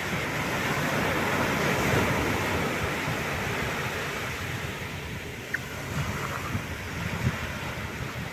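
Atlantic surf breaking and washing up a beach as a steady rushing noise. It swells about a second or two in, eases off near the middle and builds again toward the end.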